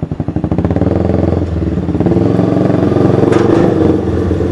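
Motorcycle engine running under load while climbing a car-park ramp, growing louder over the first two seconds and then holding a steady drone.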